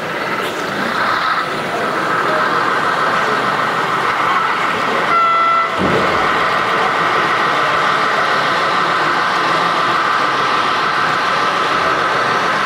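Model trains running on a layout: a steady whirring of the small motors and wheels on the track, with one short horn toot about five seconds in.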